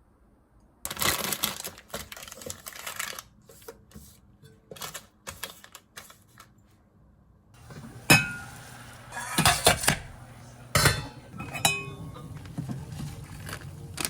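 Home kitchen sounds of cooking: dishes and utensils clattering and knocking, with a noisy rustling stretch about a second in and several sharp knocks over a low steady hum in the second half.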